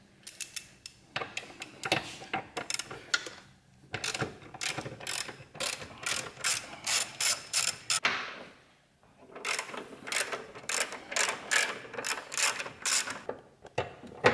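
Hand ratchet wrench clicking in quick runs as it backs out small 10 mm bolts, with short pauses between runs.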